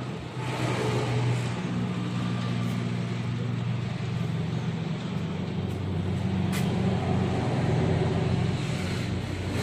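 A motor engine running steadily at idle, a low, even hum that shifts slightly partway through, with a few faint clicks.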